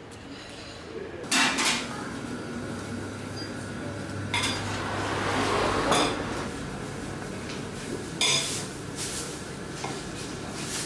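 Dishes and cutlery clattering in a fast-food shop: several sharp clinks and knocks a few seconds apart over a steady hum.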